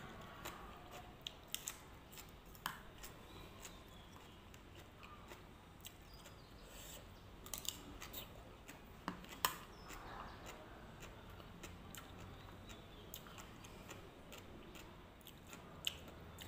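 Faint eating sounds: chewing, with scattered light clicks and taps of a clear plastic spoon against a plastic bowl, the loudest about nine and a half seconds in.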